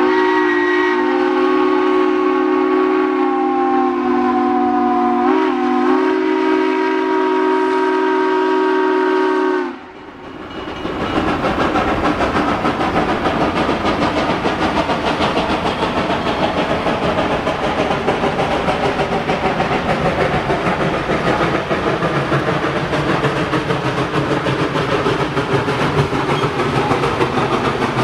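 Steam locomotive whistle blowing a long, steady chord of several tones for about ten seconds, wavering briefly midway, then cutting off. After a short lull the train runs on with a dense, steady rolling noise.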